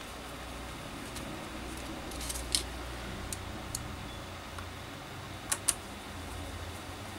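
Sharp plastic clicks and taps as the parts of a Milwaukee M12 drill/driver are handled and fitted back together. There is one loud click about two and a half seconds in, a couple of lighter ticks after it, and a quick double click late on, over a faint low hum.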